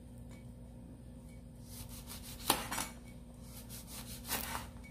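Kitchen knife slicing through a lemon and knocking down onto a cutting board. There are a few soft scraping strokes and two sharp knocks, one about halfway through and one near the end.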